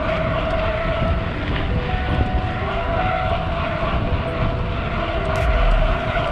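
Wind rushing over the handlebar-mounted camera microphone and mountain-bike tyres humming on asphalt during a fast road descent at around 45 km/h, with a deep buffeting rumble under a steady mid-pitched hum.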